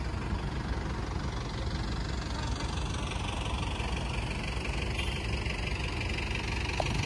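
Small hard wheels of a rolling suitcase rumbling and rattling steadily over brick paving blocks as it is pulled along.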